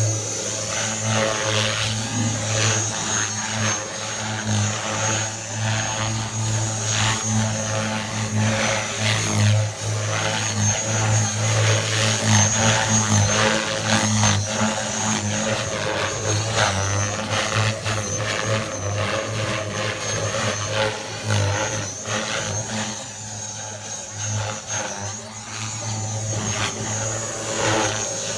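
Align T-Rex 470LT electric RC helicopter in flight, its main rotor governed at 3200 rpm making a steady low buzzing drone with a thin high whine above it. The sound swells and fades as the helicopter manoeuvres, and it is quieter for a stretch near the end.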